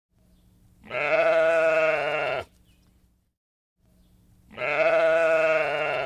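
Sheep bleating: two long, quavering bleats, the first about a second in and the second near the end.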